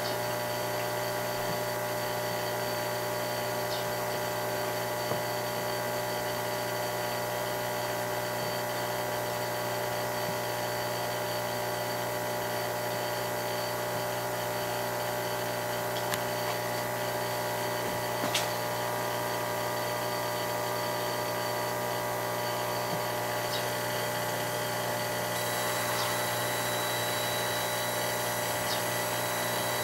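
Steady hum of a running CO2 laser cutter, with several fixed tones and a few faint clicks. A higher thin whine joins near the end.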